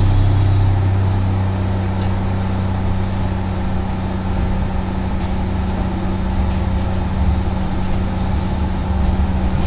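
Steady low hum and rumble of an electric train running, heard from inside the carriage.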